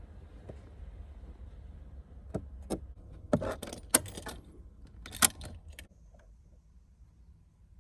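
Light clinks and clatters of small hard objects, a handful of sharp strikes over a few seconds with the sharpest one about five seconds in.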